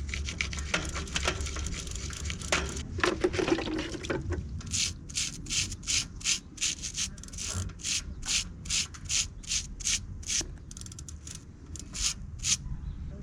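Brush scrubbing a bike part with degreaser. It starts as irregular rubbing, then settles into quick, even strokes about two or three a second, which stop near the end.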